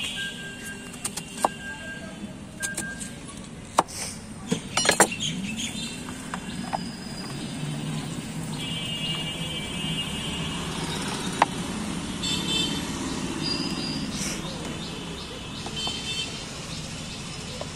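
A knife blade knocks several times on a wooden cutting board as guava is sliced, over a steady low street-traffic rumble. Later a few short high beeps come through the traffic.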